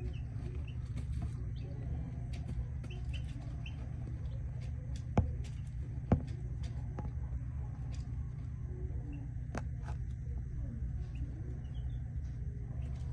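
Chickens clucking softly, with faint short peeps, over a steady low rumble. Two sharp clicks come about a second apart near the middle and are the loudest sounds.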